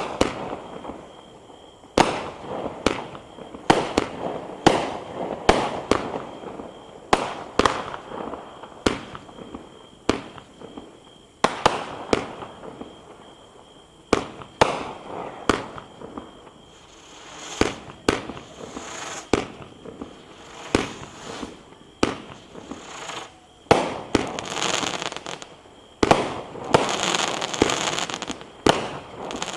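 A 32-shot consumer firework barrage (cake) firing shot after shot, a sharp report about every second. In the second half, crackling fills the gaps between reports and the shots come closer together.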